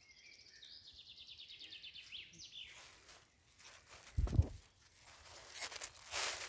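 A songbird sings a fast trill of evenly repeated notes that falls in pitch and ends after about two and a half seconds. Then a dull thump about four seconds in, followed by footsteps rustling through dry leaf litter.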